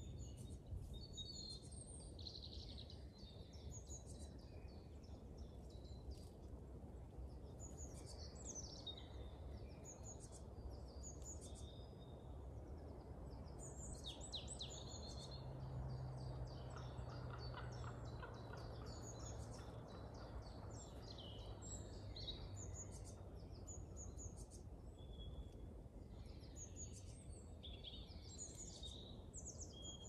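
Woodland songbirds singing and calling, many short high chirps and trills from several birds, over a steady low rumble. A low hum swells around the middle and fades again.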